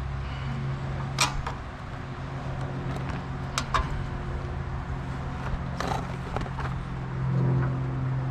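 A few sharp clicks and light knocks of tools and small engine parts being handled, over a steady low hum.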